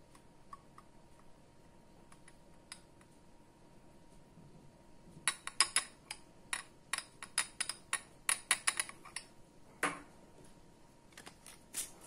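Small plastic cup clicking and tapping against the neck of a glass bottle in a quick, irregular run of light clicks, about four a second, as the last drops are knocked out of the cup. A few more clicks come near the end as a plastic screw cap goes onto the bottle.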